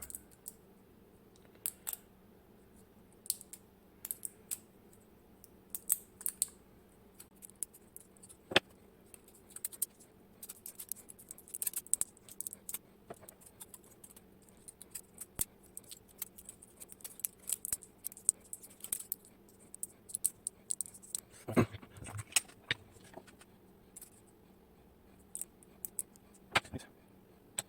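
Small, sharp metallic clicks and scrapes of thin shims and picking tools being worked into the pin chambers of an iNAHO Tierkey lock to free its core, with a louder knock about three quarters of the way in.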